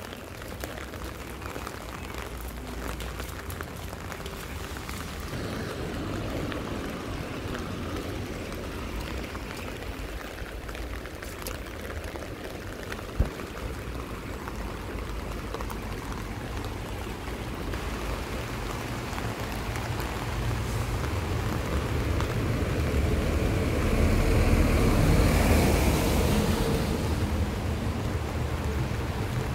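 Steady rain together with the rushing of a swollen, fast-flowing river, growing louder through the second half. A single sharp knock about halfway through.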